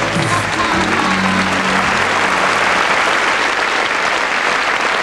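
Live audience applauding at the end of a song, with the song's last notes fading out beneath the clapping over the first two seconds or so.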